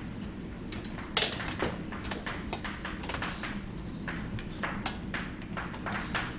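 Chalk tapping and scratching on a blackboard in quick, irregular strokes as words are written, with a sharp tap about a second in the loudest. A steady low hum runs underneath.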